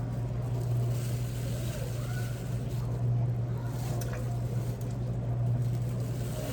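A steady low hum runs throughout, with faint voices and a few small clicks over it.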